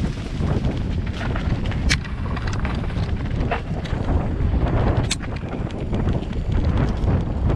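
Mountain bike descending a rocky dirt singletrack at speed: a continuous rough rumble of wind on the microphone and tyres on dirt and stones, with frequent rattles and clacks from the bike over the bumps, two sharp clacks about two seconds and about five seconds in.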